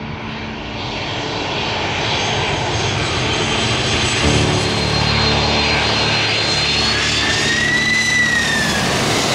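Jet airliner passing low overhead: a loud rush of engine noise that swells over the first couple of seconds and then holds, with high whining tones, one of which glides up and then falls away near the end.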